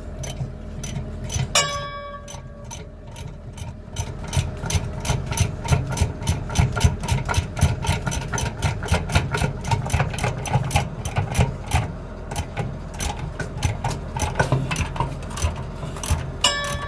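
Ratchet wrench clicking rapidly and evenly, about five clicks a second, as a 19 mm suspension bolt on a truck air bag mount is loosened.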